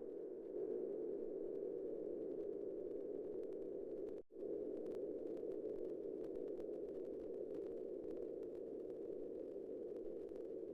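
Steady synthetic electronic tone, a low hum-like drone held at one pitch, cutting out briefly about four seconds in before carrying on.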